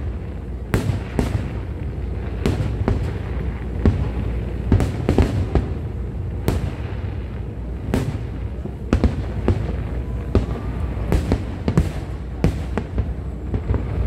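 Aerial fireworks display: a rapid, irregular series of sharp bangs, one or two a second, over a continuous low rumble.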